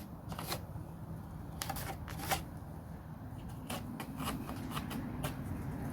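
Light scattered taps and clicks of timber being handled and laid out while marking up, with the strongest knock about two seconds in, over a low steady hum.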